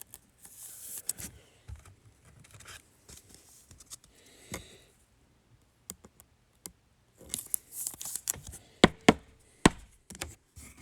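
Trading cards being handled: cards sliding and rustling, with a run of sharp clicks and taps near the end.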